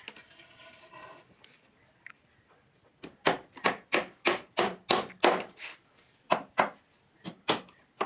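Repeated blows on wood, like a hammer or mallet striking a door part, at about three blows a second. The blows start about three seconds in, stop briefly near the middle and then resume.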